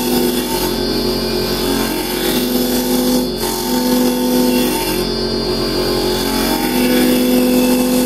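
Carbide-tipped hollowing chisel cutting into the end grain of a spinning tanalised softwood blank on a wood lathe: a steady cutting noise with a droning tone that comes and goes with each pass. It is the noise of cutting into end grain.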